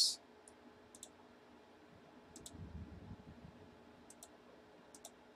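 Faint computer mouse clicks, about half a dozen spread irregularly, with a soft low rumble near the middle.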